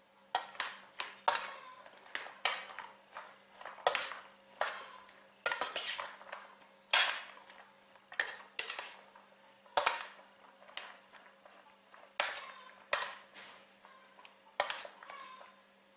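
A metal spoon clinking and scraping against a stainless steel tray while tossing chopped cucumber and carrot, in irregular sharp clinks about two a second.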